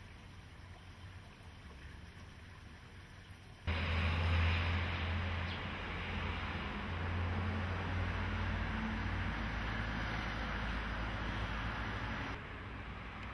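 Quiet outdoor background, then about four seconds in a sudden loud, steady rush with a low rumble, typical of wind buffeting the camera microphone outdoors; it drops back to a lower level near the end.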